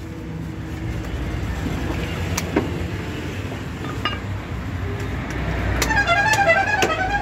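A road vehicle's engine rumbling past, building up over the seconds, with a faint knock or two. Background music with a stepping melody comes in near the end.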